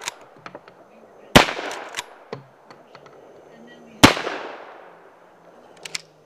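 Two shotgun blasts about two and a half seconds apart, each trailing off in a long echo, with a few lighter clicks between them and near the end.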